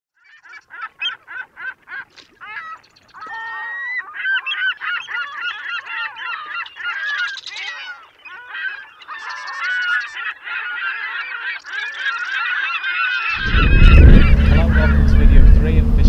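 A flock of birds calling: a few spaced calls at first, then many short calls overlapping in a dense chorus. About thirteen seconds in, a loud low rumble comes in suddenly under them and takes over.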